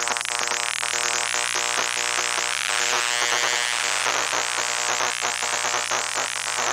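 Circuit-bent hard drive motors driven by control voltage, their electrical noise picked up by induction coils: a dense, steady mechanical-electronic noise drone of stacked tones and rapid pulsing, with high chirping sweeps repeating a few times a second.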